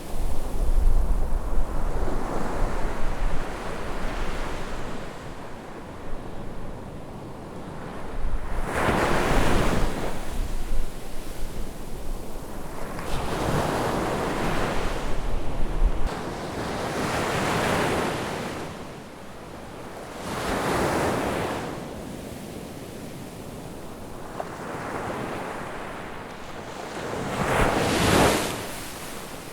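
Ocean waves breaking on a beach, each surge of surf swelling and washing out every three to five seconds. Wind rumbles on the microphone through about the first half.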